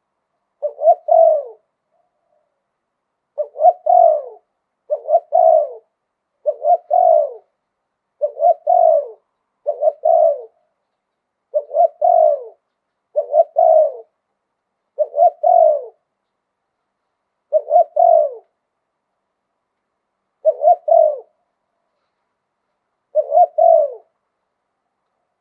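Spotted dove cooing: about a dozen short, low coo phrases, each a quick run of two or three notes, repeated every one to three seconds with quiet between. This is the 'liu tan' phrasing that Thai dove keepers prize.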